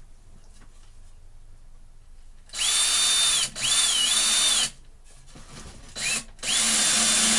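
Power drill driving a small screw into wood in short runs. The motor whine starts about two and a half seconds in, stops briefly, then runs again with a dip in pitch as the screw bites. After a short blip it runs steadily again near the end.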